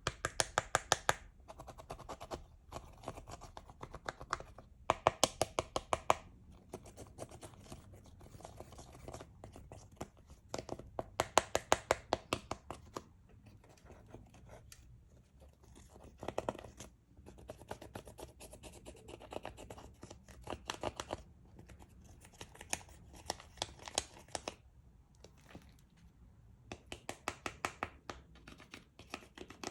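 Slime with makeup mixed in being squeezed and kneaded by hand. It gives off bursts of rapid, sharp crackling clicks, a second or two at a time, with quieter squishing between.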